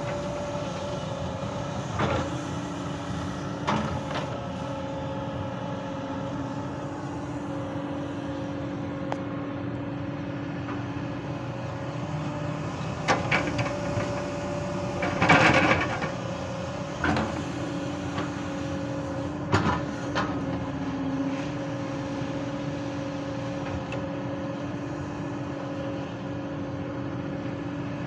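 Hyundai crawler excavator's diesel engine running steadily with a whining tone, broken by several short clanks of the bucket. About halfway through there is a loud, longer clatter as a bucketful of soil and stones drops into the steel body of a Tata tipper truck.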